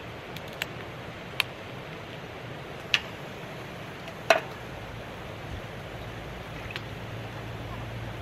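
A handful of light, separate clicks and knocks from a plastic drink bottle and food containers being handled and set down on a metal camp table, the loudest about four seconds in, over a steady background hiss.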